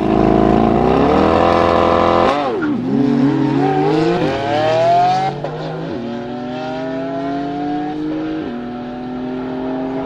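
Lamborghini Aventador SV Roadster's V12 launching hard from a standstill, with a second car launching beside it. The engine revs climb and drop back at each upshift, about four times, loudest in the first two seconds and fading as the cars pull away.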